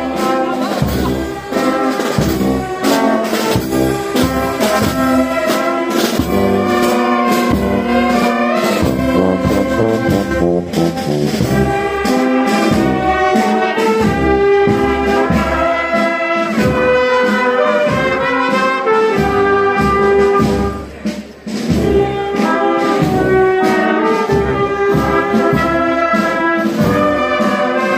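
Street brass band playing a tune, trumpets and sousaphone over a steady beat, with a short break about three-quarters of the way through.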